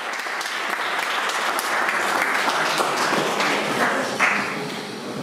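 A crowd of guests applauding, the clapping swelling over the first couple of seconds and easing off near the end.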